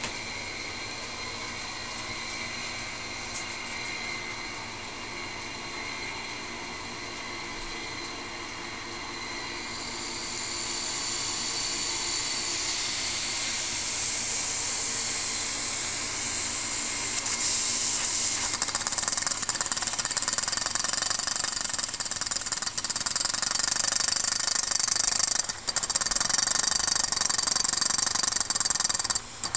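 Small brass model steam engine running on compressed air: a steady hiss of air that grows louder about ten seconds in, then from about eighteen seconds a fast, even chatter as the engine runs up to speed.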